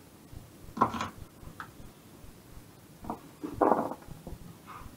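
Chef's knife chopping green beans on a wooden chopping board: a few separate knocks of the blade on the board, the loudest about a second in and just before four seconds in.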